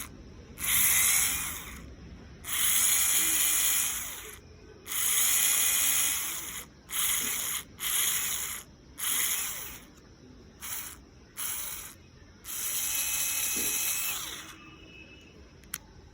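Cordless screwdriver running in nine short bursts, each half a second to two seconds long, a whirring motor with a faint steady whine, stopping and starting between them.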